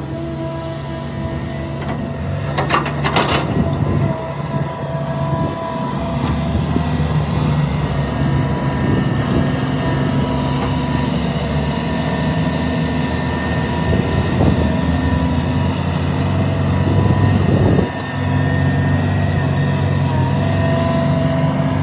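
Heavy diesel engine of a large hydraulic excavator running steadily under load, with a steady whine over the engine note. A short cluster of sharp metallic knocks comes about three seconds in, and the engine sound briefly dips near the end.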